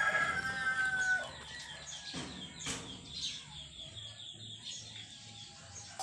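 A rooster crowing, its long call ending about a second in. A single short knock comes near the three-second mark, with quieter chicken sounds after.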